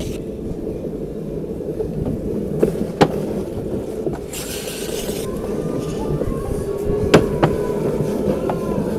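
Luge cart's wheels rolling fast over a concrete track: a steady low rumble, with sharp clicks as the wheels cross joints in the concrete and a brief hiss about four and a half seconds in.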